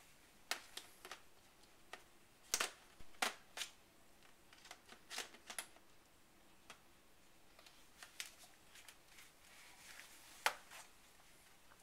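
Scattered clicks and knocks as a battery pack is fitted into the underside of an Acer Aspire One netbook. The loudest knocks come about two and a half seconds in and again near the end.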